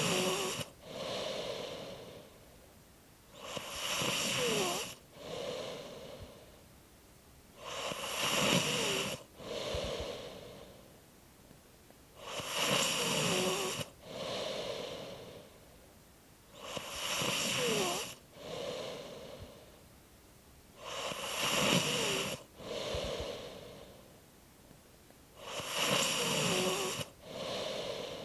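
A person snoring in slow, regular cycles, about one every four and a half seconds. Each cycle is a louder breath carrying a quiet squeak that falls in pitch, followed by a softer second breath.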